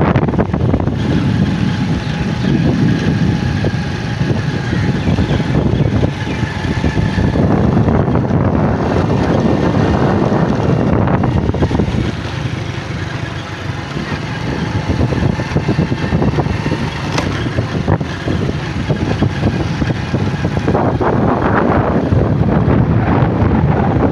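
Wind buffeting the microphone over the steady running noise of a vehicle travelling along a road. It dips briefly about halfway through.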